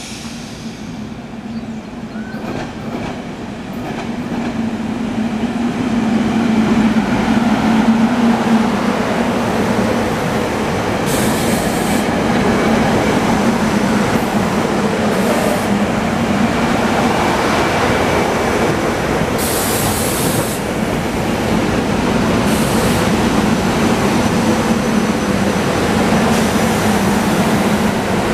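SEPTA Silverliner IV electric multiple-unit commuter train pulling in along the platform and slowing to a stop. It hums steadily and its wheels run on the rails, growing louder over the first several seconds as it draws near. Several short bursts of high hiss come through as it slows.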